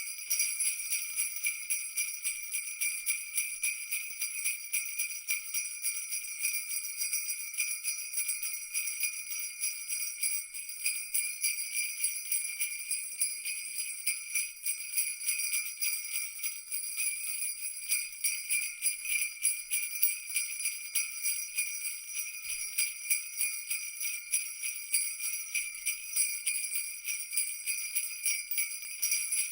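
Christmas jingle bells shaken continuously: a steady, high-pitched jingling made of rapid, irregular shakes.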